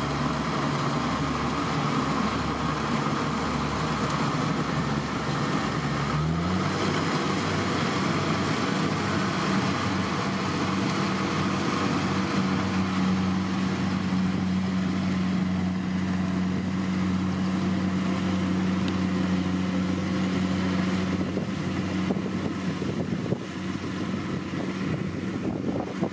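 Kubota DC70 Plus combine harvester's diesel engine running steadily under load as it harvests rice. About six seconds in, its tone steps to a different steady pitch and holds there.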